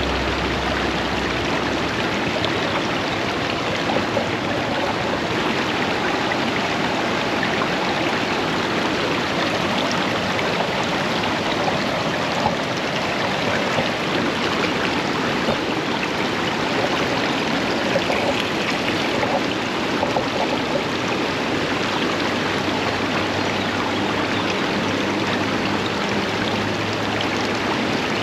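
River water rushing steadily past, with a few faint short knocks through it.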